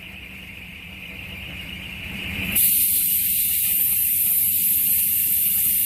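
Compressed air hissing steadily as an air hose fills a semi-trailer tire. The hiss starts abruptly about two and a half seconds in, after a quieter low rumble.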